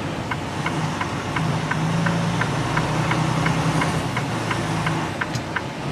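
Semi-truck's diesel engine running at low speed, heard from inside the cab, with a steady light ticking about three times a second.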